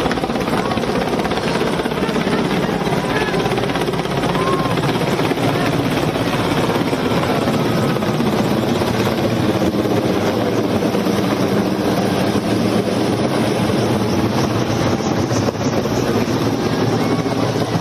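Military helicopter flying low overhead, its rotor and turbine noise loud and steady.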